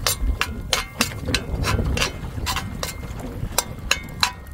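Sharp, irregular crackling pops, two or three a second, from a charcoal cooker heating a pot of melting butter, over a low steady rumble.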